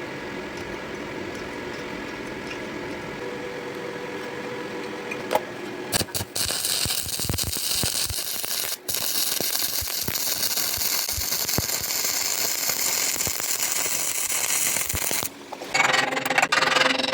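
Stick (electrode) arc welding: after a low steady hum, the arc strikes about five seconds in and burns with a loud, continuous crackling hiss, broken once briefly. The hiss stops near the end, then a short loud burst follows.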